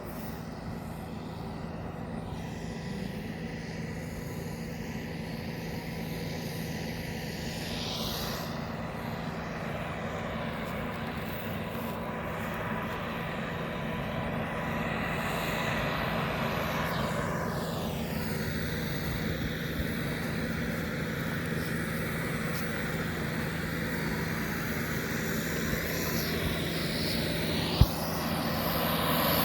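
Kubota farm machine's engine running steadily, slowly growing louder, with one sharp click near the end.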